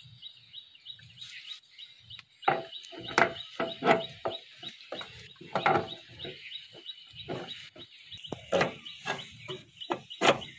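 Steel roller chain clattering against its sprockets and the metal chain case of a power tiller's rotary drive as it is lifted in and seated by hand: a run of uneven clanks from a few seconds in, several with the same short metallic ring. A faint, even chirping runs under it.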